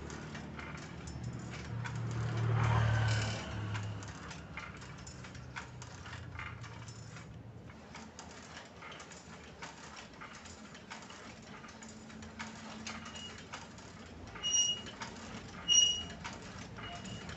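Steel planting arms and pivot linkage of a hand-built manual rice transplanter being cycled by hand, with light metal clicks and rattles throughout. A low hum swells and fades in the first few seconds, and short high squeaks come near the end, the two loudest about a second apart.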